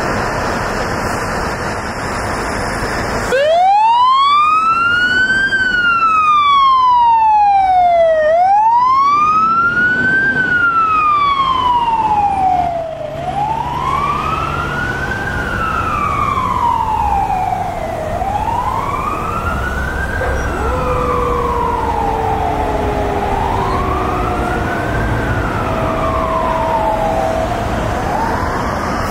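Fire truck running, then about three seconds in its siren starts and wails, sliding slowly up and down in pitch about every five seconds. Later a second, lower tone slides down beneath the wail.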